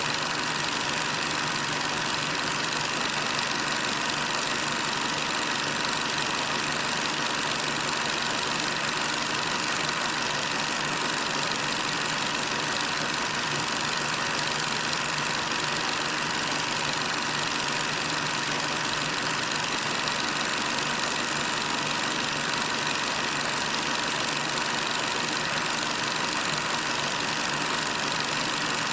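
Steady hiss with a constant hum, unchanging throughout, with no footsteps, music or voices standing out: the noise of an old, otherwise silent film soundtrack.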